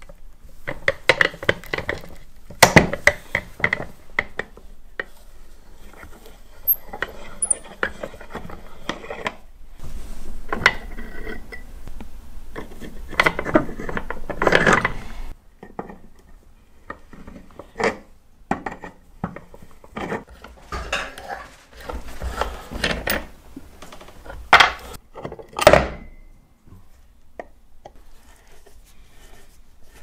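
Hand work on the metal and wooden parts of an old rusty coffee grinder: scattered metallic clinks and knocks, with a stretch of steady rubbing from about ten seconds in that stops suddenly about halfway.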